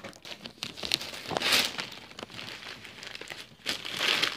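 Gift-wrapping paper crinkling and rustling as a wrapped present is handled and unwrapped, with two louder bursts, one about a second and a half in and one near the end.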